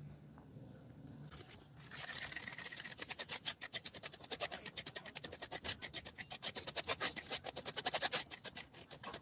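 Steel spoon scraping and stirring thick guava pulp around a stainless steel mesh strainer in quick repeated strokes, pressing the juice through while the seeds stay on top. The scraping starts about two seconds in.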